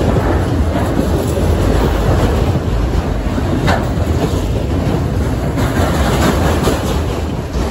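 Freight train's autorack cars and boxcars rolling past close by: a loud, steady rumble of steel wheels on rail, with a brief sharper sound about three and a half seconds in.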